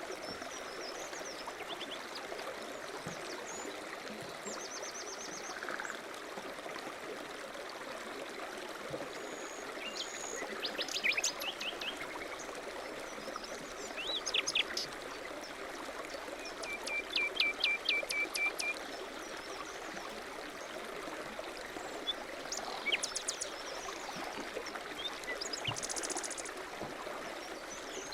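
Steady running water with small birds chirping. The chirps come in short runs of quick high notes every few seconds, the longest a rapid trill about two thirds of the way through.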